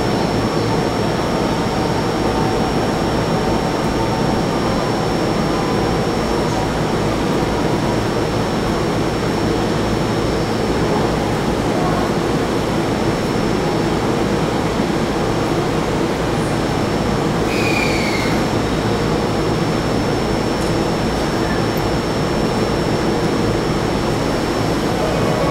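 Steady hum of an E231 series commuter train standing at the platform with its doors open, with a thin high whine throughout and a short squeak about 18 seconds in.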